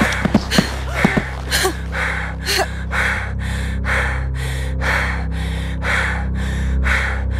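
A person panting hard and fast, about two breaths a second, with short whimpering gasps in the first second or so, over a low steady drone.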